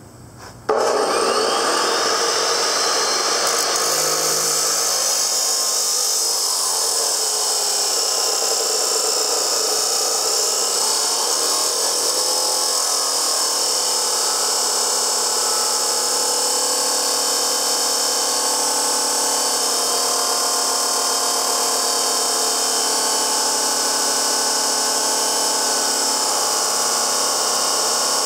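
Dewalt D28710 14-inch abrasive chop saw switched on about a second in, its motor spinning up with a rising whine, then running steadily as the abrasive wheel grinds through 1/8-inch-thick 3-inch square steel tubing.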